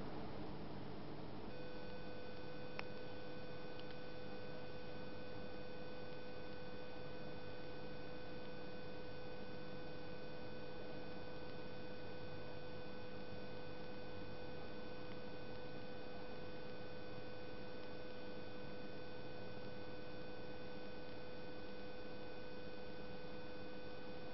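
A steady electrical whine, one constant pitch with higher overtones, switches on about a second and a half in and holds unchanged over a steady hiss. A single click comes shortly after it starts.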